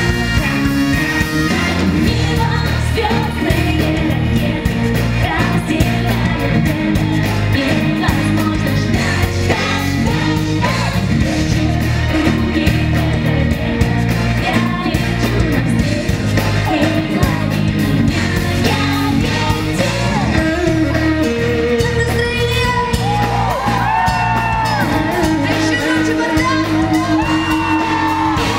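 Live pop-rock music from a concert: a band with drums and guitar playing under a singing voice, with the crowd shouting along.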